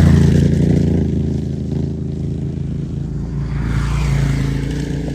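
A motor vehicle's engine running close by, loudest at the start and easing off, then swelling again about four seconds in.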